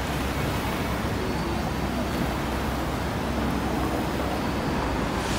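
Double-decker bus standing at a stop with its engine idling, a steady low rumble over street traffic noise.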